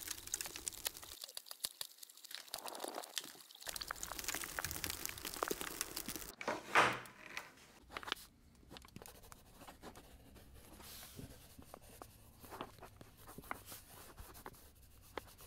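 Dry, grainy material crackling and crunching. A dense fine crackle fills the first several seconds, a louder rustle comes about seven seconds in, and after that only sparse faint ticks.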